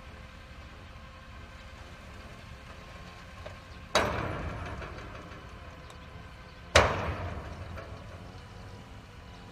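Mobile crane and the steel structure it is holding: two loud sharp bangs about three seconds apart, each ringing out and fading over a second or so, over the crane's steady low engine rumble.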